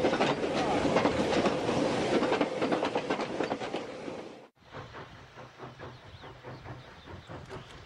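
Freight wagons rolling past close by, steel wheels clattering over the rail joints with a dense run of clicks, fading as the last wagon clears. After a sudden cut about four and a half seconds in, a steam locomotive working in the distance, much quieter, with a faint steady patter.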